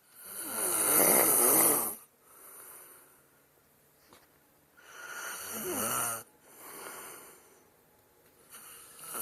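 A man snoring heavily. Each loud snore on the in-breath is followed by a quieter breath out, in a cycle about every four and a half seconds. There are two full cycles, and a third snore begins near the end.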